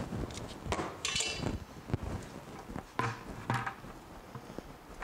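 A few separate metallic clinks and knocks, a little ringing in some, from hand tools working a coolant hose connection loose, with a plastic bucket held beneath. They come about a second in and again around three seconds in.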